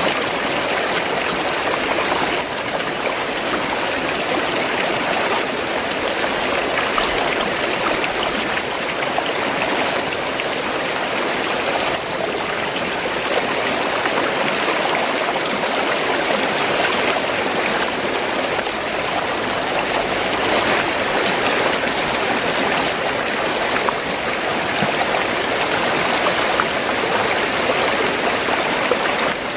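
Fast-flowing stream water gurgling and splashing steadily over rocks.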